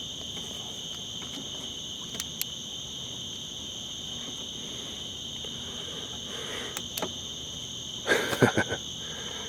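A steady chorus of night insects, a high continuous trilling at two pitches. A few sharp clicks and, about eight seconds in, a short cluster of louder knocks.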